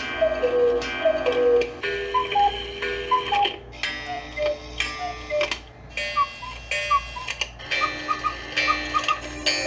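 Light music with no voice: a repeating figure of short, bright pitched notes, paired high and low, over a steady ticking beat.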